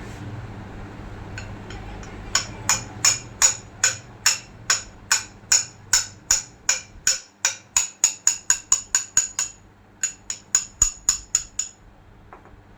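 Hammer tapping repeatedly on metal, fitting parts into a forklift steering hydraulic cylinder. The sharp, ringing strikes come about three a second and quicken to about five, stop briefly, then resume in a second quick run.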